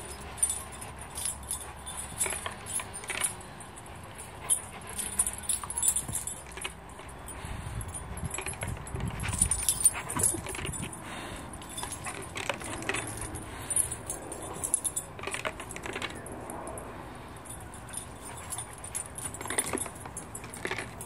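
Metal collar tags of a black Labrador-type dog jingling on and off as the dog moves about, with scattered light clinks and a low rumble around the middle.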